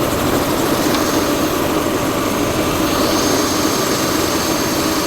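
Helicopter running steadily in flight: a constant rushing engine and rotor noise with a thin, steady high whine over it.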